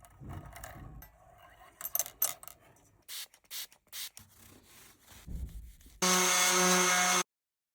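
Scrapes, rubs and scattered clicks of hands and tools working on an electric guitar. Near the end comes a loud, steady pitched tone lasting just over a second, which cuts off abruptly.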